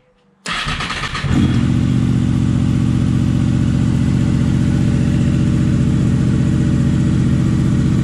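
2003 Honda VFR800 VTEC's V4 engine cranked on the electric starter about half a second in, catching within a second and settling into a steady idle.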